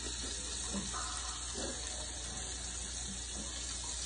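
Hot fat sizzling steadily in a small frying pan on a gas stove.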